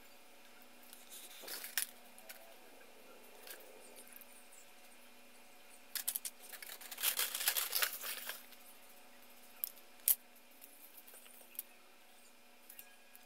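Plastic model-kit parts and runners being handled: scattered clicks and taps, a burst of rustling and crinkling from about six to eight seconds in, and two sharp clicks near ten seconds.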